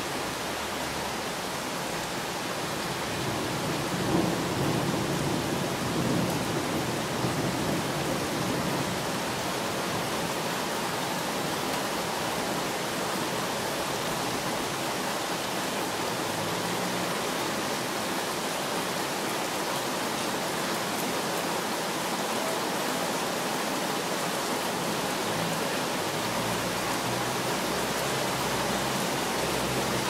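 Steady hiss of rain falling, with a low rumble of thunder about four to eight seconds in.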